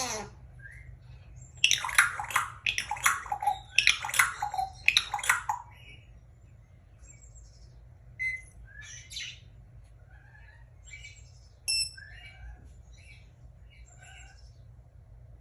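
Pet bird vocalising: a quick run of loud calls for about four seconds, then softer scattered chirps and short whistles.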